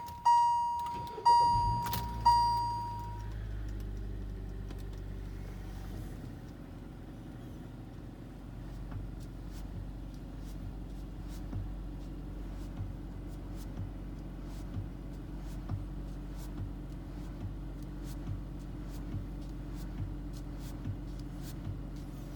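A car's dashboard chime dings three times, then the engine runs with a steady low hum. From about nine seconds in, light knocks come roughly once a second as the steering wheel is turned: the steering knock that a replaced steering column has not cured.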